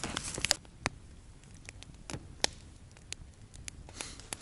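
Campfire of dry firewood crackling: irregular sharp pops, about two a second.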